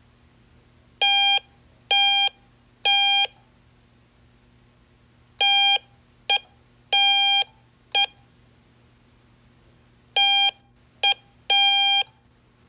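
Morse code tones: a steady beep at about 800 Hz keyed in long dashes and short dots. It sends three letters, dash-dash-dash (O), dash-dot-dash-dot (C) and dash-dot-dash (K), each about two seconds apart.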